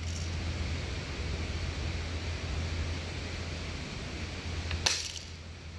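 Steady background hiss, broken about five seconds in by one sharp snap of an airsoft rifle firing a BB.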